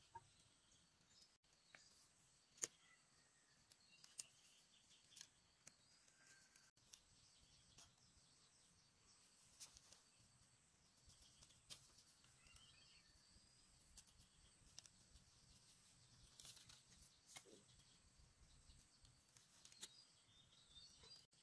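Near silence with faint scattered clicks and taps at irregular intervals, and faint bird chirps in the background.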